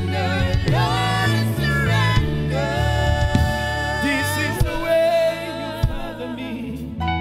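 Live gospel worship singing: a male lead vocalist sings long held notes that slide and waver, backed by another singer and a steady instrumental accompaniment.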